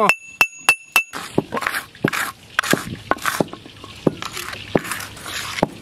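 A brass plate ringing under four quick taps as ground spice is knocked out of a pot, then rhythmic rough scraping strokes, about three a second, of a hand stone crushing garlic into paste on a grooved stone grinding slab (sil).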